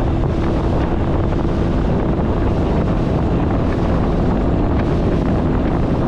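Zodiac inflatable boat running out at speed under its outboard motor: a steady engine drone buried under heavy wind buffeting on the microphone.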